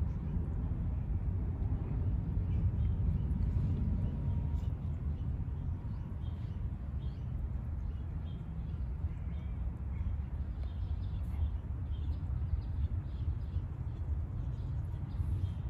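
Outdoor ambience: a steady low rumble with short, high bird chirps, which become frequent about six seconds in.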